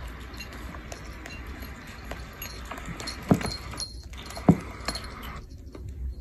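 Cats pawing at a smartphone lying on a rug: light scattered clicks and two dull thumps about a second apart, over a low steady hum.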